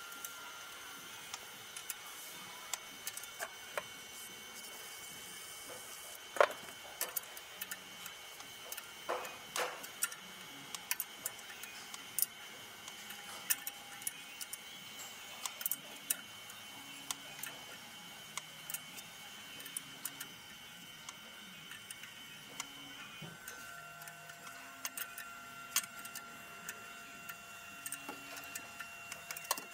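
Irregular metallic clicks, taps and clinks of hand tools and fittings being worked around the turbocharger of a Ford Ranger 2.2 diesel engine, with one sharper knock about six seconds in.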